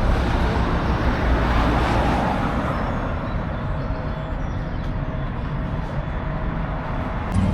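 Motorbike and road traffic engines running and passing, a steady low rumble that swells about a second or two in.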